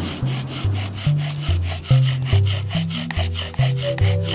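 Bow drill being worked for a friction fire: the wooden spindle turning back and forth in the fireboard, giving a rhythmic wood-on-wood stroke with each pass of the bow, several a second. Background music with a low repeating bassline plays under it.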